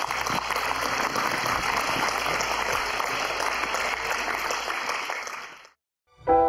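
Large audience applauding steadily, fading out a little before the end; after a brief silence, music begins.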